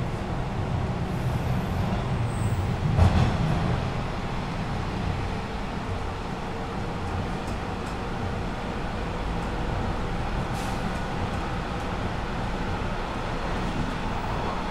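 Bombardier T-1 subway car running on the track between stations: a steady rumble of wheels and running gear, with a single louder thump about three seconds in.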